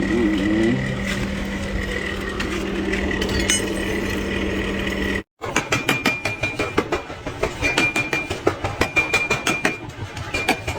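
A steady machine hum with a low droning tone, then rapid hammer blows on forged iron, several strikes a second, with a metallic ring after some of them.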